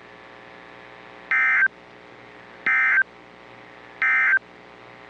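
Three short, identical electronic beeps, evenly spaced about 1.4 seconds apart, over a faint steady hiss.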